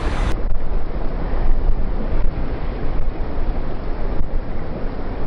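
Wind buffeting the microphone: a steady rushing rumble with no breaks.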